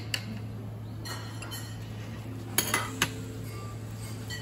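A few sharp clinks of dishes and cutlery knocking together: one near the start and three in quick succession around the middle. A steady low hum runs underneath.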